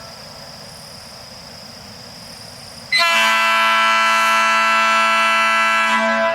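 Nathan AirChime P3 train horn with P0, P1 and P2 bells and double-diaphragm power chambers blowing one steady three-second blast of a low A major chord (220, 277 and 330 Hz), with the P2 bell noted as dominant. The blast starts sharply about three seconds in and stops near the end, leaving an echo.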